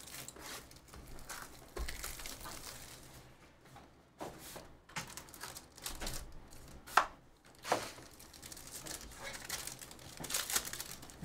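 Handling of a cardboard trading-card box, with scattered taps and a couple of sharp clicks, then a Panini Origins foil card pack crinkling as it is torn open near the end.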